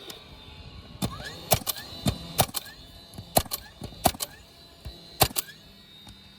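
A dozen or so sharp clicks or knocks in an irregular run, starting about a second in and stopping a second before the end.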